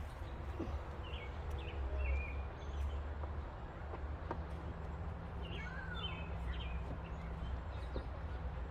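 Small birds chirping in short calls, in two bursts about a second and about five and a half seconds in, over a steady low rumble, with a few faint clicks.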